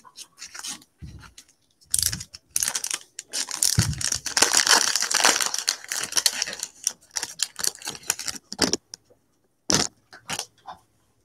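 A foil trading-card pack crinkling and tearing as it is opened by hand, with cards clicking and sliding against each other. It is a dense crackly rustle through the middle, with a single sharp snap near the end.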